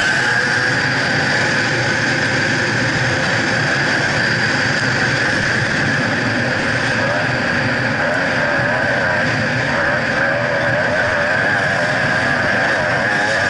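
Gas Gas EC300 enduro bike's single-cylinder two-stroke engine running hard while the bike is ridden along a dirt track, with a steady rush of wind and riding noise over the on-bike camera. The engine note wavers up and down about halfway through as the throttle changes.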